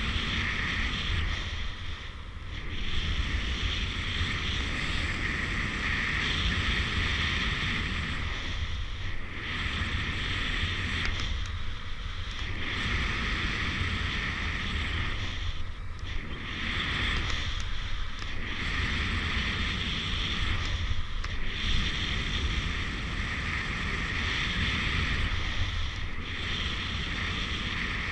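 Airflow rushing over an action camera's microphone in paraglider flight: a steady wind roar that swells and eases every few seconds.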